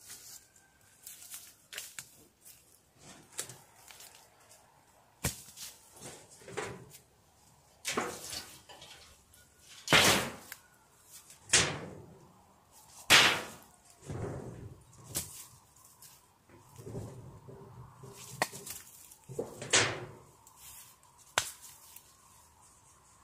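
Irregular knocks, scrapes and rustling bursts as the metal roof sheets and cover of a beehive are handled and moved, the loudest about ten, thirteen and twenty seconds in.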